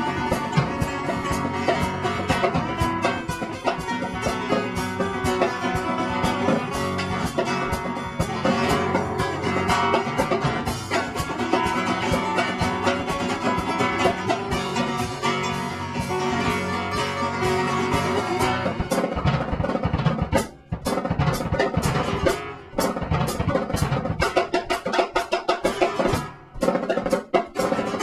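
Live instrumental music from two nylon-string acoustic guitars, fast-strummed, with a drum kit. In the last third the playing thins into sharp, separated hits with three brief stops.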